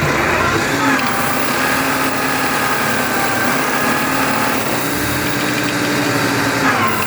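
Small engine of a Berardinucci Tornado motor hoe running steadily. Its pitch steps up about a second in and dips near the end.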